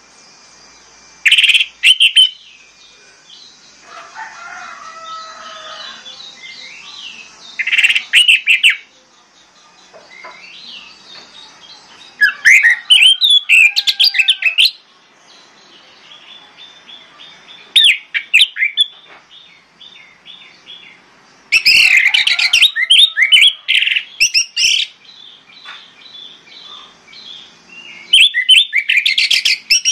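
Orange-headed thrush singing: about six loud bursts of rapid, varied phrases a few seconds apart, with softer twittering between them.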